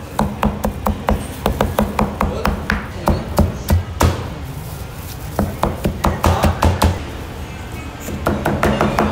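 Cleaver chopping through cooked meat onto a plastic cutting board: sharp knocks about three a second in runs, with a lull about halfway and a fresh run near the end.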